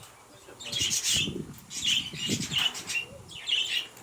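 Aviary birds chirping in short, repeated high calls.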